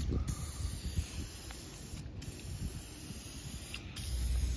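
Aerosol spray can of lens tint hissing as a coat is sprayed on, stopping briefly three times (at the start, about halfway, and near the end) between passes. A low rumble runs underneath.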